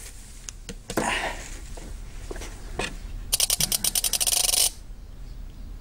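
Wind-up kitchen timer dial being turned: a fast, even run of clicks, about ten a second, lasting just over a second, beginning about three seconds in. Before it come a few scattered knocks and a brief rustle.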